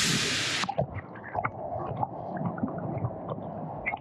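Waterfall pouring into a pool, a loud rushing hiss that cuts off suddenly under a second in. After that, heard from under the water: muffled gurgling and rumbling with scattered small clicks.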